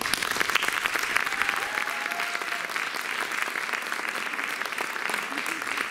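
Audience applause that breaks out all at once and goes on at a steady level: the audience applauding the end of a dance performance.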